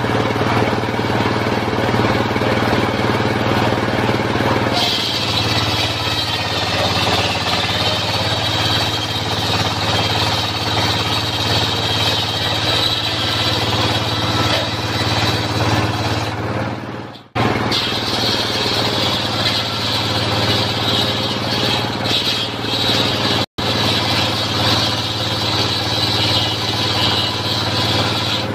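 Engine-driven mobile circular sawmill ripping an acacia log lengthwise. The engine runs steadily under load, and a higher cutting sound from the blade in the wood comes in about five seconds in. The sound cuts out briefly twice.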